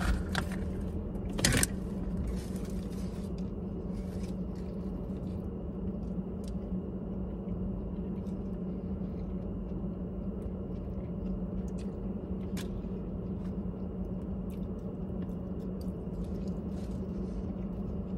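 Steady low hum of a parked car's interior, with faint chewing and a few small clicks as a roast beef sandwich is eaten; the sharpest click comes about a second and a half in.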